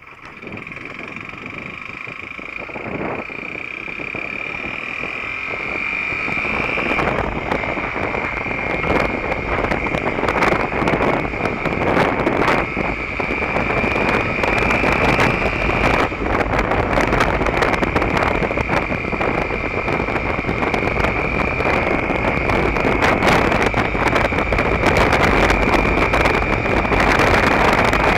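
Derbi Terra Adventure's 125cc single-cylinder motorcycle engine pulling away and accelerating, its steady whine stepping down briefly twice as it climbs. Wind rushing over the microphone grows louder with speed and stays high.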